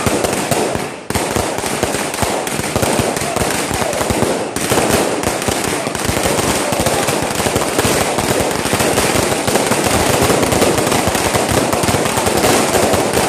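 Fireworks going off in a dense, continuous barrage of rapid bangs and crackles, with a brief lull about a second in.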